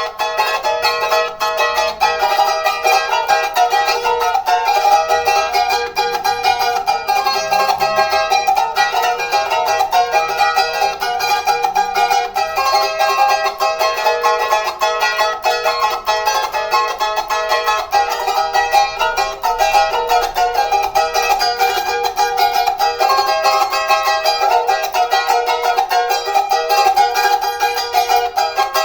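Hualaychos, small high-pitched Andean charangos, strummed rapidly in a folk tune, with almost nothing in the bass.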